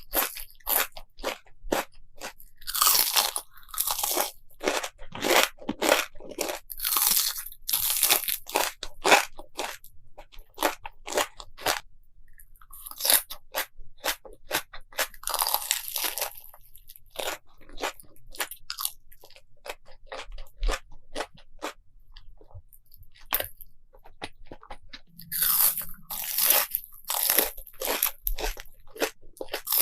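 Close-miked crunchy biting and chewing of crisp food, in dense crackly runs with a couple of quieter pauses.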